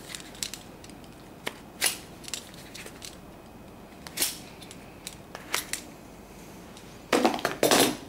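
Packaging being handled and opened: scattered light clicks and rustles, then a louder burst of crinkling plastic twice near the end.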